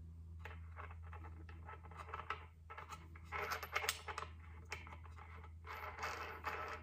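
Light clicks and scraping of metal parts being handled as a lock nut is threaded by hand onto an angle grinder's spindle over the cutting wheel, in irregular bunches, over a faint steady low hum.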